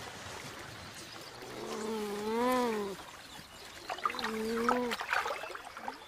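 Beaver giving two drawn-out whining calls, the first rising and falling, the second shorter and steadier, over trickling stream water, with a few light clicks near the end.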